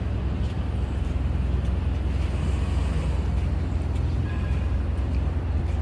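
Steady city street traffic noise: a low rumble of passing cars and buses, with a faint high tone briefly about four seconds in.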